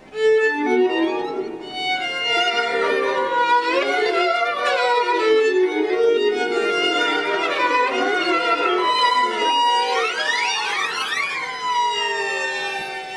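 Solo violin playing quick, shifting passages, with a held high note about nine seconds in, then a flurry of fast sliding notes sweeping up and down.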